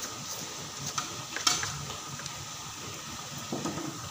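Sliced shallots frying in a wok of hot oil, a steady sizzle, with a metal spatula scraping and knocking against the wok as they are stirred. The sharpest knock comes about a second and a half in.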